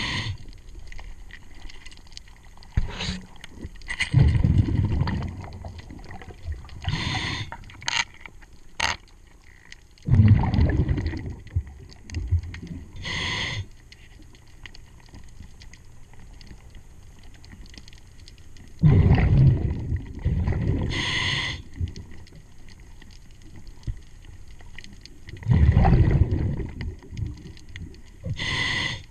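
Scuba diver breathing through a regulator underwater: slow breaths, each a short hiss of inhaled air followed by a long, low bubbling rumble of exhaled air, about four cycles, with a couple of sharp clicks in between.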